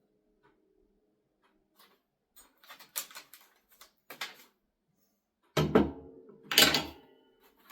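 Metal parts of an angle-grinder chop-saw stand clinking and rattling as they are handled, then two heavy clunks about a second apart, each with a short ring.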